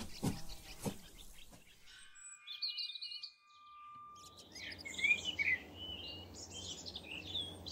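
Birdsong: several birds chirping and twittering, with a soft outdoor background hiss from about four seconds in. A few soft knocks are heard in the first two seconds.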